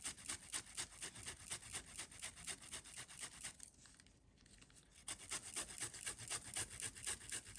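Fresh ginger root being grated by hand in quick rasping strokes, about four or five a second, with a short pause about halfway through before the strokes resume.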